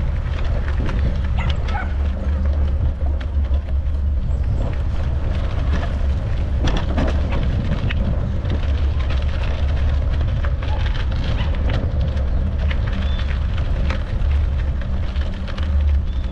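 Steady wind rumble on the microphone of a bicycle-mounted camera while riding, with scattered small clicks and knocks throughout.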